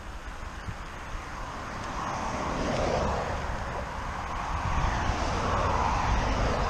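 Rushing wind and road noise from a moving vehicle, with a low rumble underneath, growing louder about two seconds in.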